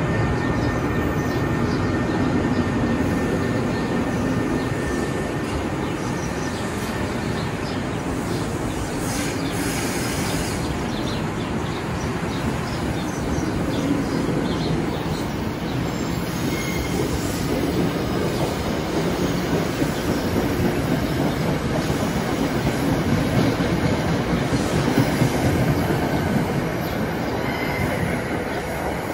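NJ Transit single-level passenger coaches rolling past along the platform: a steady rumble of steel wheels on the rails with clickety-clack over the joints. Twice there is a brief high wheel squeal, once in the middle and once near the end.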